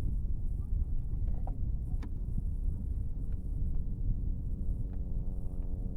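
Steady low rumble of wind and water on the microphone, with a few light clicks; about halfway through, the steady hum of a motorboat engine comes in and keeps on.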